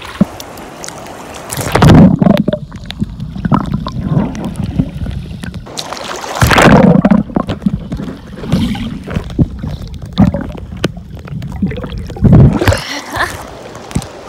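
Water splashing and sloshing in irregular loud surges, the three biggest about two, six and a half and twelve and a half seconds in.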